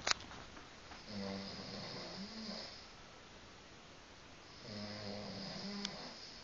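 A man snoring in his sleep: two snores about three and a half seconds apart, each lasting about a second and a half, with a breathy hiss over a low buzzing tone. A sharp click right at the start.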